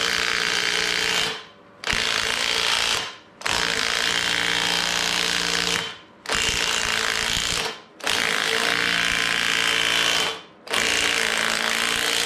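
Impact wrench hammering in six bursts of one to two and a half seconds, with short pauses between.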